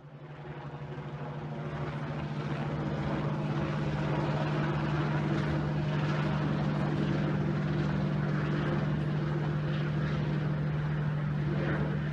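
Engine droning steadily with a strong low hum and a hiss of wind or water noise above it, fading in over the first two seconds.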